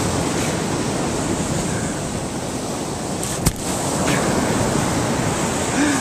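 Steady rush of surf mixed with wind buffeting the microphone, with a single sharp click about three and a half seconds in.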